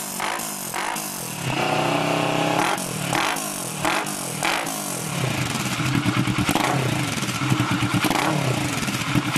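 Kawasaki ER-6n's parallel-twin engine through a polished-aluminium Roncar SS aftermarket exhaust, revved in a series of short throttle blips, one held for about a second near the start, with quick rippling revs in the second half.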